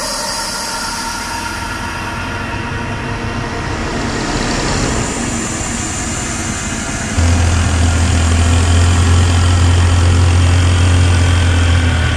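Irbis Dingo T150 snowmobile engine running. For the first seven seconds it is a steady, even rushing sound; then the sound jumps to a loud, steady low drone heard close to the machine.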